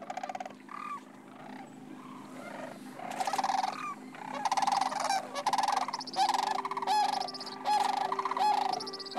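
A flock of sandhill cranes calling: many overlapping rolling, rattling calls, growing louder and more frequent from about three seconds in.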